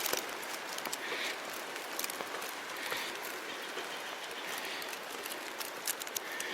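Steady hiss of light rain, with faint scattered ticks and a few soft footsteps on the wooden ties of a railway bridge.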